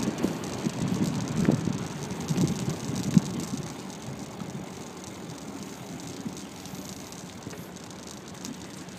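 Riding noise of a bicycle picked up by a bike-mounted phone: irregular rattling knocks and road rumble, busiest in the first few seconds with one sharp knock about three seconds in, then settling to a steadier low rumble with a light wind hiss.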